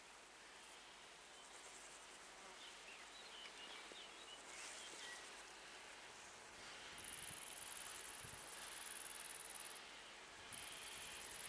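Faint, high-pitched insect chirring, starting about seven seconds in, stopping briefly and starting again near the end. A few faint bird chirps come before it.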